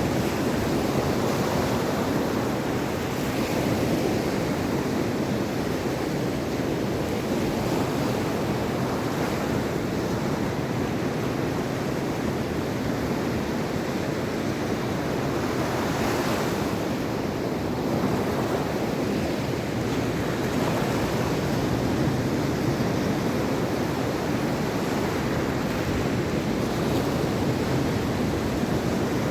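Mediterranean sea waves breaking and washing on the shore in a steady surf, swelling at intervals, with wind on the microphone.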